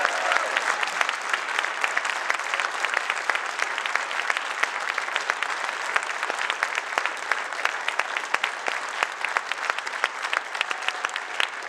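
Audience of several hundred applauding, dense steady clapping that slowly dies down toward the end.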